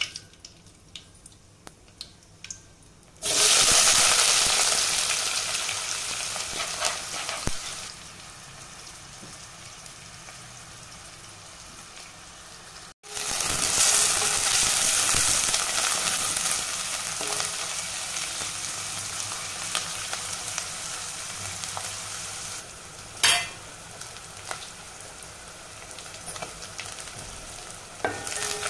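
A few pops of mustard seeds in hot oil, then a sudden loud sizzle as chopped onions and curry leaves go into the oil in a steel pot, settling into steady frying. The onions are stirred with a wooden spatula, with one sharp knock of the spatula on the pot near the end.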